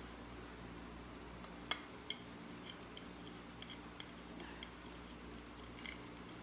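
Metal fork clinking and scraping on a plate while twirling spaghetti: scattered light clicks, with two sharper clinks about two seconds in, over a faint steady room hum.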